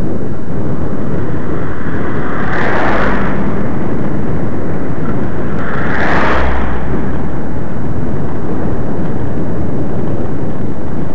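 Heavy wind noise buffeting a microphone moving at speed along a road, a constant loud rumble. Two short louder whooshes come about 3 and 6 seconds in, the second as a car passes close alongside.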